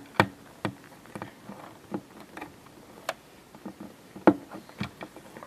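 Irregular light clicks and taps, a dozen or so, of small plastic toy dolls being handled and knocked against a hard surface, with faint rustling between them.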